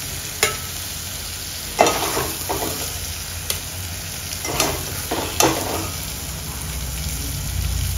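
A long steel ladle scraping and knocking against a metal cooking pot as thick chicken masala is scooped out, with several sharp clinks spread through the scooping. The thick masala sizzles quietly in the pot on the hot stove underneath.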